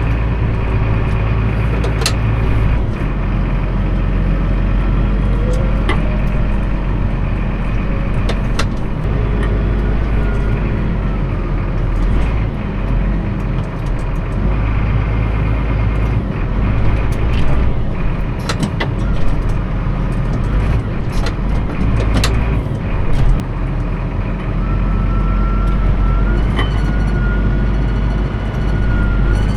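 A farm vehicle's engine running steadily throughout, with intermittent clanks and rattles over it.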